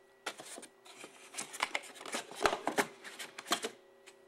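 Handling noise around a wooden humidor: a run of irregular clicks, taps and light rustles from a handheld camera being moved about and wood being touched, loudest near the middle, over a faint steady hum.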